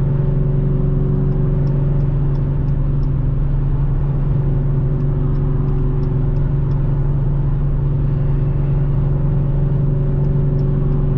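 2018 Dodge Challenger R/T Scat Pack's 6.4-litre HEMI V8 with Flowmaster exhaust running at a steady engine speed while the car cruises, a constant low drone over road and tyre noise.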